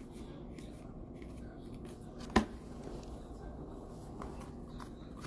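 Baseball trading cards being flipped through by hand: faint soft clicks and rustles, with one sharper tap about two and a half seconds in, over a low steady hum.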